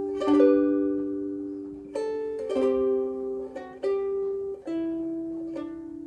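Soprano ukulele strung with Aquila B-black strings, played slowly. Notes and chords are plucked about every half second to a second, each left to ring on with long sustain, and the last one fades away near the end.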